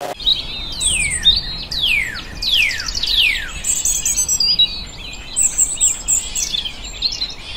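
Birdsong from several small birds: about four clear whistles each sliding steeply down in pitch in quick succession, then a busy mix of high chirps and twitters.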